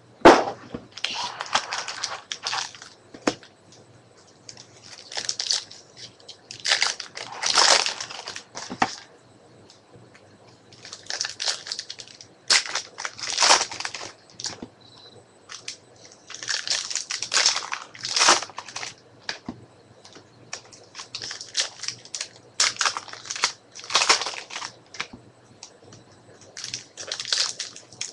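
Trading card pack wrappers being torn open and crinkled by hand, with cards slid and shuffled out of them, in irregular bursts with short pauses between.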